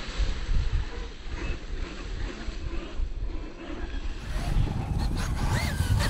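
Traxxas UDR RC truck's brushless electric motor whining briefly up and down in pitch as the truck drives slowly on concrete, over a steady low rumble.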